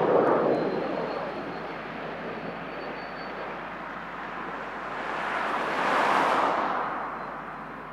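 F-22 Raptor's twin turbofan jet engines heard in a flypast: loud at first, easing, then swelling again with a rising hiss to a peak about six seconds in before fading.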